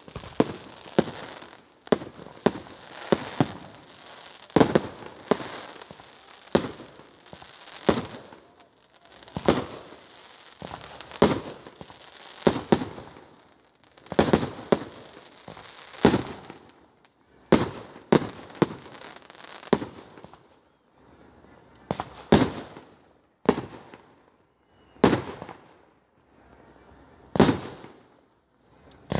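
Aerial fireworks bursting overhead, a series of sharp bangs roughly one every one to two seconds.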